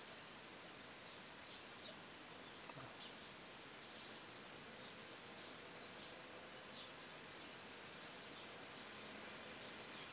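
Faint steady hiss with small birds chirping faintly now and then.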